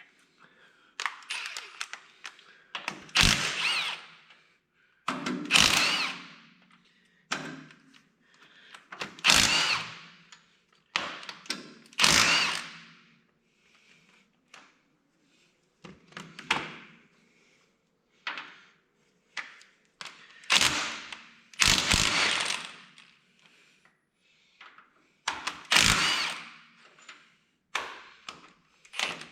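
Power driver running bolts out of a tractor's hydraulic lift cover in a string of short bursts, each one dying away as the trigger is let go, with brief pauses between bolts.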